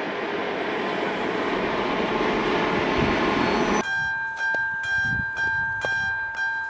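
A steady rushing noise, then from about four seconds in a level-crossing warning bell: an electronic ringing with evenly repeated strokes, about three a second, sounding while the crossing barriers come down.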